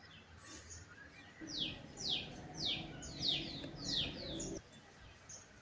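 A songbird chirping: a quick run of high chirps, each sweeping down in pitch, several a second, over a low rumbling noise that cuts off near the end.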